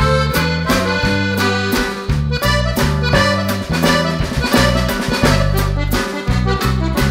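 Background instrumental music with a bouncy beat, led by an accordion-like melody.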